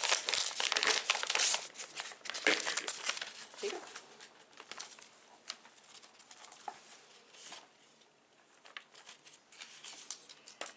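Paper envelope being handled and opened: crinkling and rustling paper with some tearing, busiest in the first few seconds, then quieter intermittent rustling.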